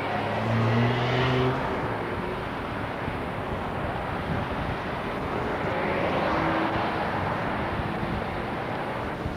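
Street traffic at an intersection: cars driving past, the noise swelling as each passes and fading again. A low engine note from a passing vehicle stands out for the first second and a half.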